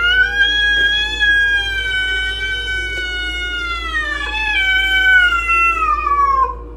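A cat's single long, drawn-out meow, held for about six seconds, with its pitch sinking toward the end before it stops.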